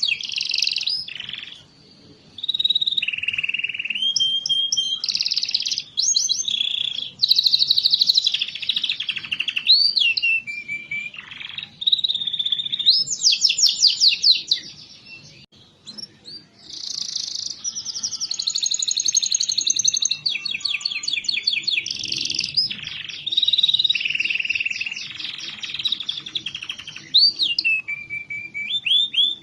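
Domestic canary singing a long song of rapid trills and rolls of repeated notes, broken by short pauses about two seconds in and about halfway through.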